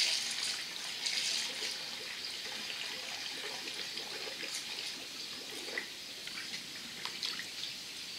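Used antifreeze poured from a drain pan through a filter funnel into a Duramax diesel's cooling system: a steady trickling stream of liquid, with a few light clicks.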